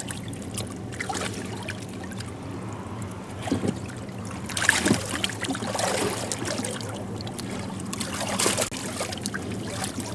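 Water splashing and sloshing as a swimmer in a life jacket moves against the stern and tubes of an inflatable boat. The splashes come louder about halfway through and again near the end.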